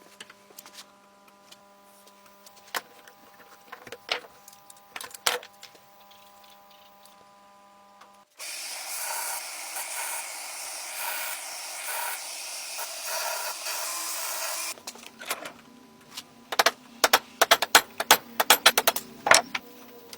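Restoration work on a knife, heard in three sections. First a few scattered clicks over a faint steady hum. Then about six seconds of steady hissing, scraping noise. Then a quick run of sharp clicks and knocks.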